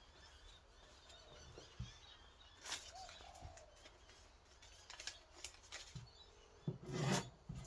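A freshly sharpened scandi-grind knife slicing through a sheet of paper to test its edge: a few short papery rasps and handling knocks, the loudest about seven seconds in.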